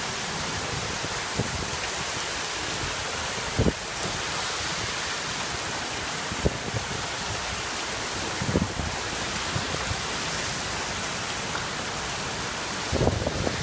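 Heavy thunderstorm rain pouring down steadily on a flooded street and the canopy overhead, with a handful of sharp knocks scattered through it, loudest about four seconds in and near the end.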